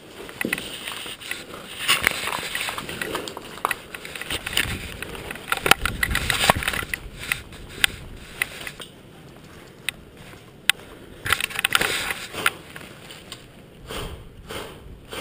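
Close movement noise of an airsoft player on the move: footsteps through undergrowth, clothing and kit rustling, and the rifle knocking and clicking as it is handled, in irregular bursts with a quieter stretch in the middle.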